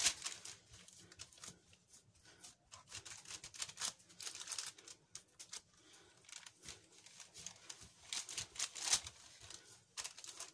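Hands pressing and spreading ground meat on parchment paper in a metal baking tray: the paper rustles and crinkles in irregular scrapes, loudest at the start and near the end.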